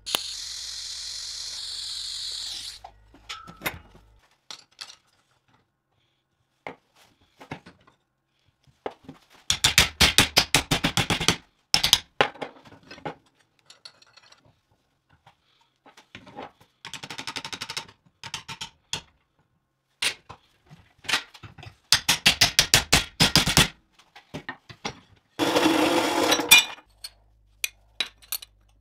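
Metalworking sounds: a steady hiss for about two and a half seconds, scattered clicks, then several short bursts of rapid strokes, tool working on metal, a second or two each.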